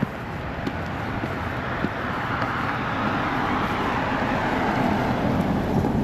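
A road vehicle driving past: a rush of tyre noise swells to a peak about halfway through and eases off, with a lower rumble building near the end.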